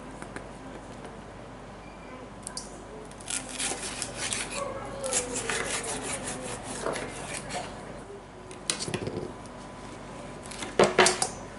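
Kitchen utensils and cookware being handled: irregular clinks and knocks of metal and dishes in clusters, the loudest group near the end.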